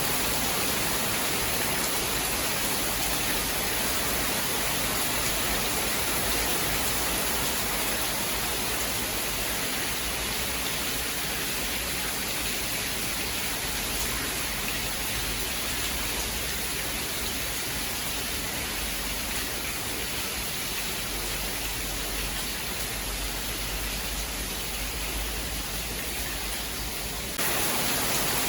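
Steady, even hiss of heavy rain with no thunder, shifting abruptly to a slightly brighter sound near the end.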